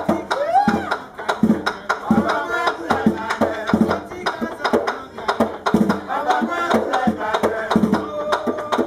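Danmyé music: a bèlè drum (tanbou bèlè), played by hand by a drummer sitting astride it, beats a steady rhythm under a sung chant.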